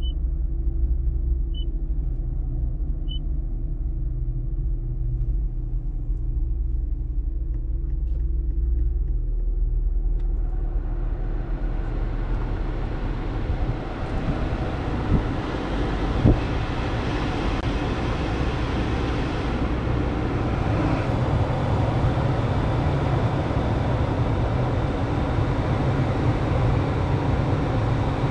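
2025 Toyota Corolla idling, heard from inside the cabin as a steady low hum; about ten seconds in, the air-conditioning blower is turned up and its rushing air swells over a couple of seconds and holds, with two clicks of the controls a few seconds later.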